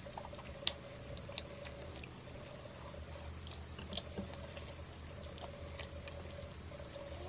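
Quiet chewing and small wet mouth and finger-licking clicks from a person eating soft bakery pastry, with one sharper click less than a second in. A faint steady hum runs underneath.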